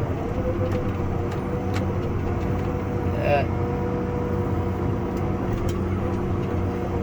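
John Deere 8320 tractor running steadily under load, heard from inside the cab: an even engine drone with a steady whine over it. A brief chirp about three seconds in.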